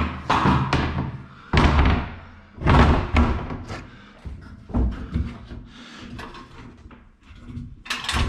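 Repeated heavy thumps and knocks as scaffolding frames and parts are handled and set in place, several sharp impacts a second or so apart.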